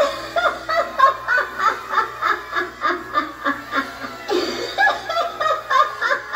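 Harriet Hustle animatronic clown laughing through its speaker: a long run of recorded giggling, short high laughs about three a second.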